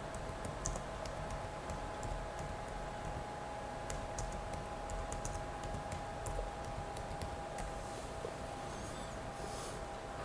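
Typing on a computer keyboard: irregular key clicks over a faint steady hum, with the typing stopping shortly before the end.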